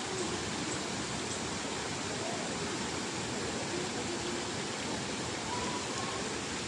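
Steady rushing of flowing water, even and unbroken, with faint wavering pitched sounds now and then.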